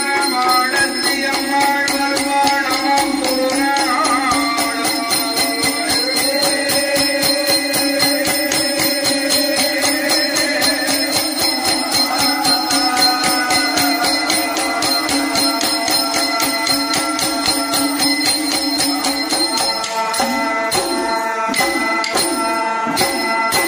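Villu pattu ensemble music: the bells on the bow jingle in a fast, steady beat with percussion under a sustained, held melody line.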